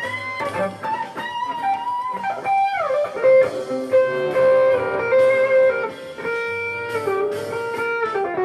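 Jazz fusion music: an electric guitar plays a lead line of held, singing notes, with a slide down in pitch about three seconds in.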